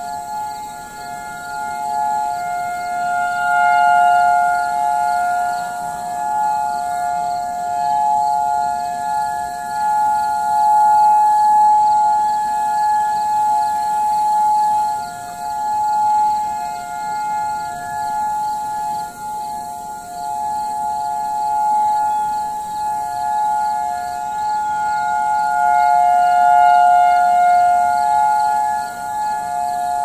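Federal Signal outdoor tornado warning sirens sounding a steady, two-pitch tone during a siren test, several heard together across town. The sound swells and fades every few seconds without changing pitch.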